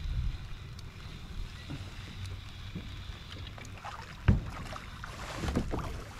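Wind rumbling on the microphone while a fish is reeled in to a kayak. A single sharp knock comes about four seconds in, the loudest sound, followed near the end by a short patter of small clicks and splashes.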